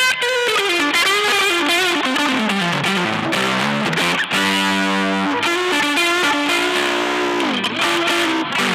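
Electric guitar played through an EarthQuaker Devices overdrive pedal, with a driven tone. It plays freestyle lead lines: descending runs of single notes, with a few notes held for about a second around the middle.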